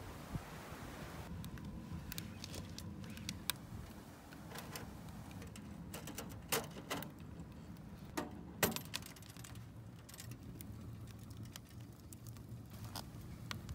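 Wood fire crackling inside a small homemade sheet-metal can stove: scattered sharp pops and snaps, with a few louder clicks about halfway through.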